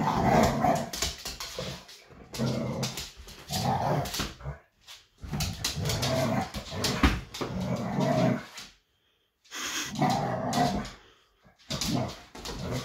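Dogs barking and growling in repeated bursts of one to three seconds, with short quiet gaps between them.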